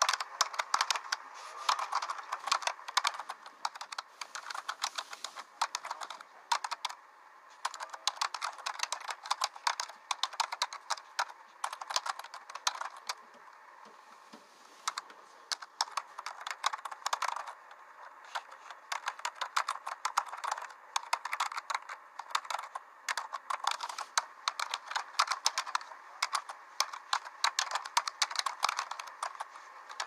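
Fast, irregular clicking, many clicks a second, with a few short pauses, the longest about halfway through.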